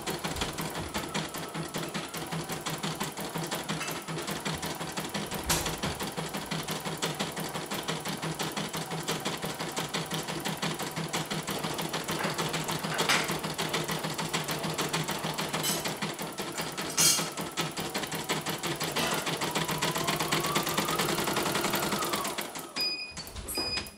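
CNY E900 portable embroidery machine stitching a design at a fast, steady rhythm, running smoothly with no thread breaks on its newly replaced mainboard. The stitching stops near the end, and a few short high beeps follow as the machine finishes the colour.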